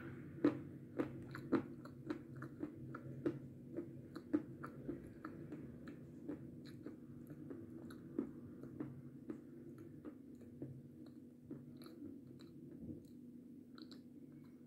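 Close-up chewing of a dry, powdery chocolate sweet with the mouth closed: rapid crunches, loud and frequent at first, growing softer and sparser as the bite is ground down.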